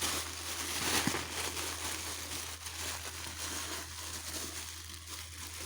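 Packaging rustling and crinkling as it is handled and opened, a continuous crackly rustle over a steady low hum.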